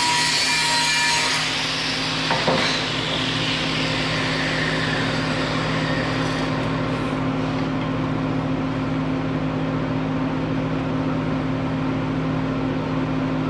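A power tool with a high, several-toned whine working on metal stops about a second in; a single knock follows, then its pitch falls slowly as it winds down. A steady low machine hum runs underneath.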